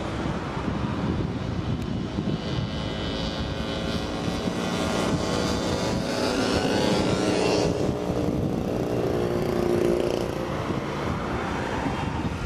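A line of old small motorcycles and scooters drives past, their engines buzzing and rising and falling in pitch as each one goes by. Old cars follow them past.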